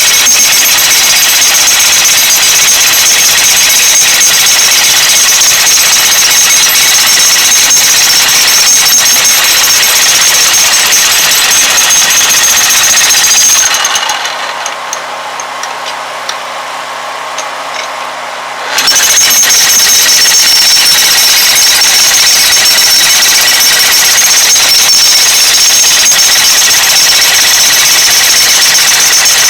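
Jackhammer breaking up concrete, hammering continuously. It stops for about five seconds in the middle, leaving a quieter steady hum, then starts again.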